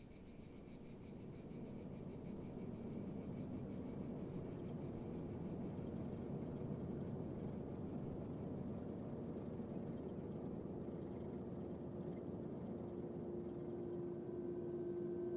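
Insects chirring in a fast, even pulse that fades out near the end, over a low steady noise that swells in over the first couple of seconds. A steady low tone comes in near the end.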